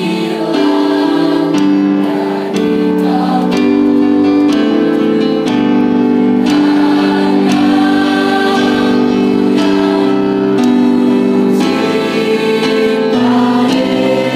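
Mixed choir of teenage boys and girls singing in harmony, slow held chords in several voice parts moving together.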